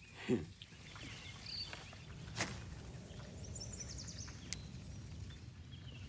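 Quiet outdoor ambience: a low steady background noise with a couple of sharp clicks and a few faint high chirps about midway.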